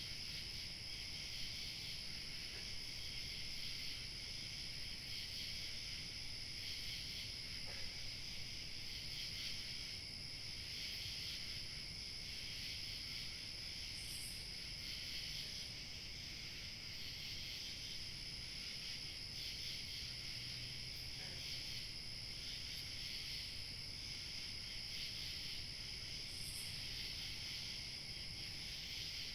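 Evening chorus of crickets chirping steadily, a dense shrill trill with a thinner high-pitched insect tone above it and two brief higher chirps partway through, over a faint low rumble of light wind.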